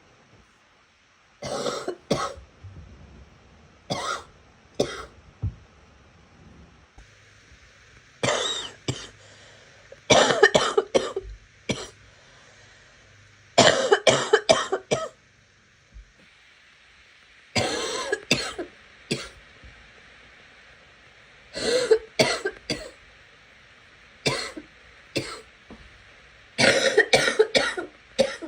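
A girl coughing in repeated fits: about ten bouts a few seconds apart, each a quick run of one to six coughs.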